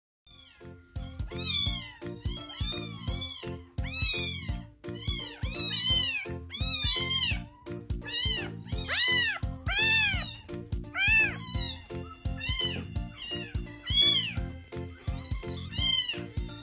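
Several young bottle-fed kittens mewing over and over, thin high mews that each rise and fall, calling for their milk when it is due. Background music plays underneath.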